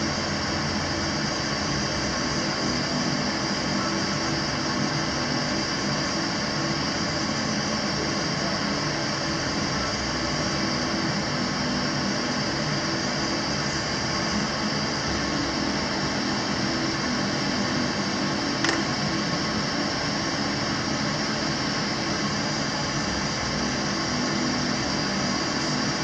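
A steady mechanical whir with a hiss, unchanging throughout, and a single faint click about three-quarters of the way through.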